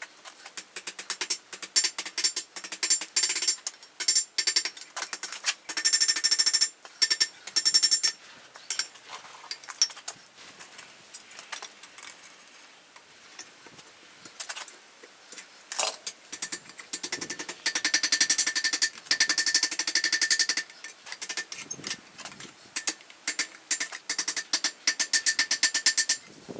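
Rapid runs of hammer blows on steel at an anvil, forging mild steel stock, each blow ringing; the blows come in long fast runs with a sparser patch in the middle.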